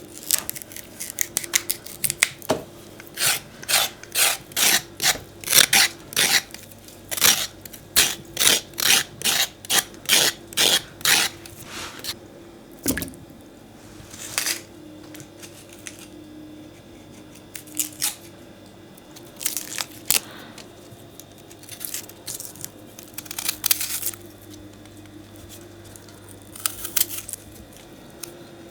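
Vegetables being cut in the kitchen: a run of short, crunchy cutting strokes at about two a second, then a few scattered cuts after a pause. A faint steady hum lies underneath.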